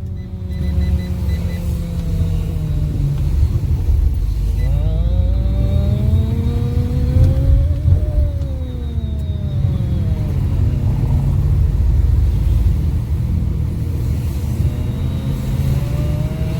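Fiat Linea driving, heard from inside the cabin: steady engine and road rumble. The engine pitch climbs for a few seconds under acceleration and falls back after about eight seconds.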